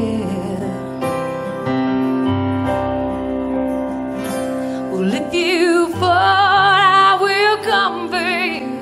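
A slow song played live on acoustic guitar and keyboard, with held chords at first. About five seconds in, a woman's voice comes in singing with a wavering vibrato.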